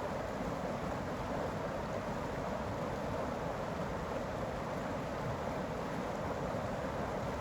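Steady rushing of a flowing creek, an even noise with no break or change.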